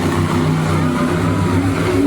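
Monster truck's supercharged V8 engine running loud and revving, its pitch stepping up and down.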